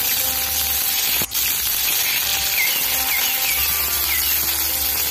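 Onion paste frying in hot mustard oil in a metal wok: a loud, steady sizzle, with a flat metal spatula scraping and stirring against the pan. There is a brief break with a click about a second in.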